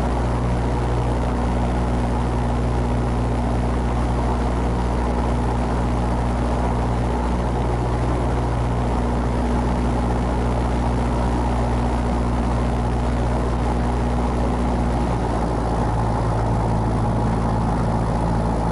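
Piper Cherokee's piston engine and propeller running steadily at low power on the ground, heard from inside the cabin. The engine note shifts slightly about fifteen seconds in.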